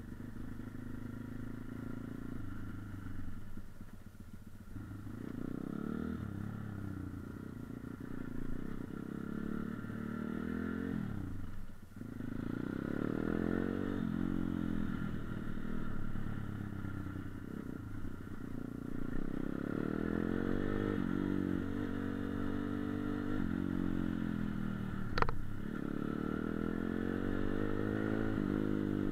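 Dirt bike engine running under way, its pitch repeatedly climbing and then dropping as the throttle is worked through the gears. A single sharp knock sounds about 25 seconds in.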